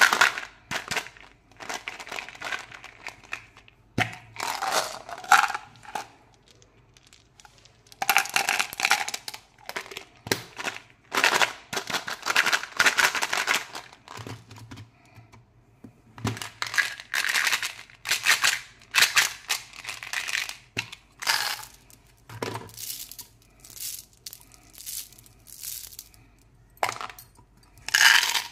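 Hands handling candy packets and plastic toy containers: irregular bursts of crinkling and rustling with scattered clicks and taps, separated by quieter pauses.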